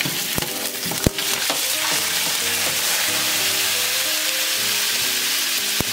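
Hot oil in a frying pan sizzling hard as a splash of water hits it over garlic-ginger paste and whole spices, a steady loud spitting hiss. A couple of sharp clicks come near the start and one near the end.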